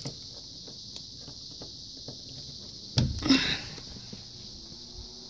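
Handling noises: faint clicks and rustling, with a louder knock about three seconds in, as an unplugged electric fan's plug is being put into the socket.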